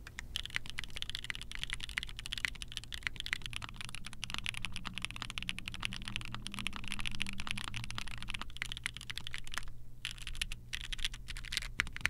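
Fast typing on a mechanical keyboard with Gateron Cream Soda linear switches, which have long-pole POM stems. The keystroke clacks come in a dense run, stop briefly near the end, then return as a few scattered presses.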